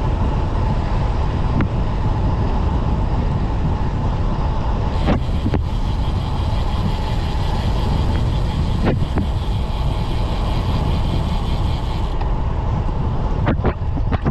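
Wind rushing over the camera microphone and tyre rumble from a carbon road bike rolling at around 40 km/h, steady and loud, with a few sharp knocks scattered through.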